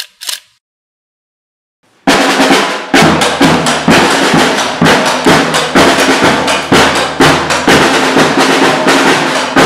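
A brief sound at the very start, then about two seconds in, loud drum-led music begins: repeated snare and bass drum hits with rolls, at a steady pulse.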